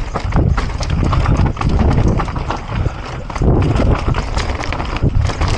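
Mountain bike descending a rough dirt singletrack at speed: tyres rumbling over dirt and ruts, with the bike rattling and knocking irregularly over bumps.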